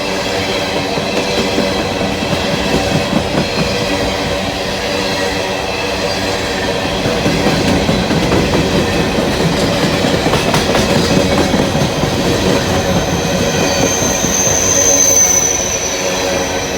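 Long freight train of empty coal hopper cars rolling past, wheels clattering over the rails, with a high-pitched wheel squeal rising near the end.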